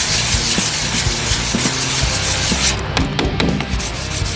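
Sandpaper rubbed by hand over spot putty on a pickup's fender lip, a steady rasping scrub that stops a little under three seconds in. A few sharp taps follow, the sandpaper being tapped to clear out the clogged grit.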